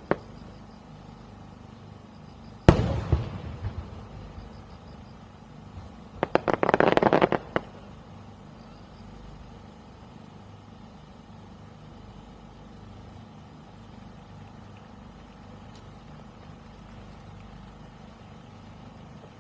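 Aerial fireworks: one loud shell burst about three seconds in, ringing off into a tail of crackles. A few seconds later comes a dense run of rapid crackling pops lasting just over a second.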